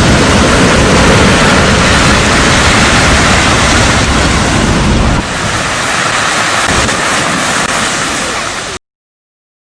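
Strong wind on the sea, with surf breaking and wind buffeting the microphone in a heavy rumble. About five seconds in, the rumble drops away, leaving the hiss of surf and wind, and near the end the sound cuts off abruptly.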